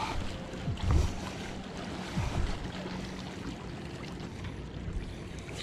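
Small waves lapping and washing against shoreline rocks, with a low thump about a second in and a softer one a second later.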